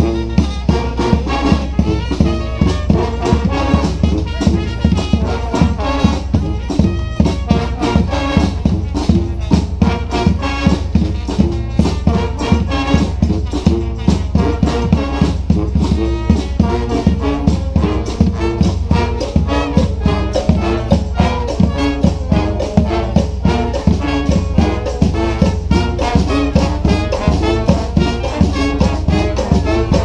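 Brass street band playing a New Orleans brass-band tune: sousaphone, saxophones and other horns over snare and bass drums, with a steady driving beat.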